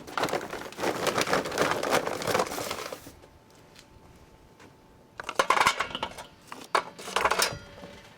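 Charcoal briquettes poured by the scoop into a homemade tin-can charcoal chimney, clattering against the metal and each other: one long pour of about three seconds, then two shorter pours.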